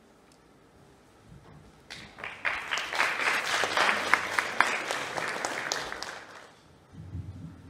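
Audience applauding: the clapping starts about two seconds in, swells quickly, then dies away a few seconds later. A brief low rumble follows near the end.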